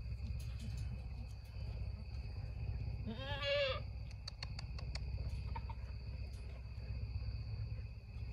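A goat bleats once, a short wavering call about three seconds in, over a steady chirring of crickets; a few sharp clicks follow just after it.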